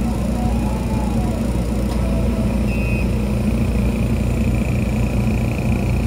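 Epilog Helix 50-watt CO2 laser engraver running as it etches oak: a loud, steady machine hum, with a faint whine that rises and falls about a second in and a thin, high steady whine from about halfway on.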